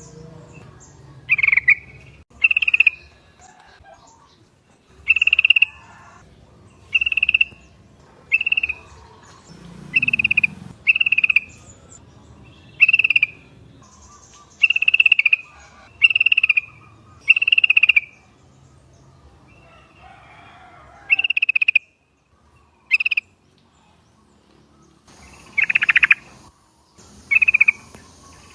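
Sooty-headed bulbul calls: short, bright calls repeated about once a second, with a pause of a few seconds about two-thirds of the way through.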